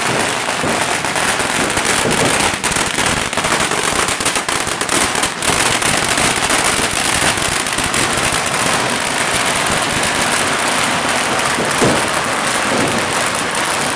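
Fireworks and firecrackers going off in a dense, continuous crackling and popping, with a cluster of sharper bangs in the first few seconds and one louder bang near the end.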